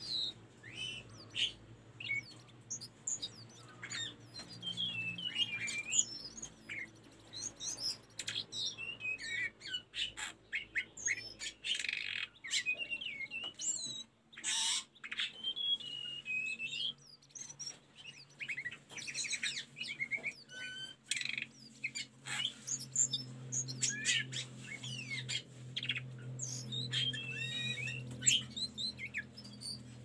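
Hill blue flycatcher (tledekan gunung) singing a dense run of quick, high whistled and twittering phrases full of rising and falling slurs, almost without pause, with one brief break about fourteen seconds in. A low steady hum lies underneath.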